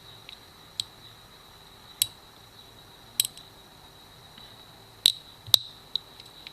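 Sharp, scattered clicks of a metal blade levering against a Victorinox Swiss Army knife's plastic scale as the scale is pried off. A few single clicks come first, then two louder snaps about five seconds in. A faint steady high whine runs underneath.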